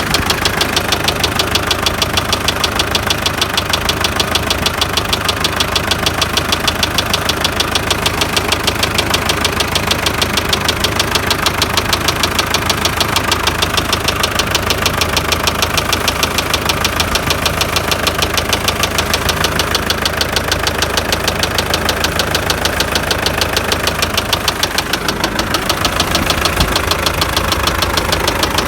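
MTZ tractor's diesel engine running at idle with a rapid, regular knocking in time with the engine. The knock came on suddenly while driving and its cause is unknown to the owner; others suggest a cracked shaft, injectors or the fuel pump.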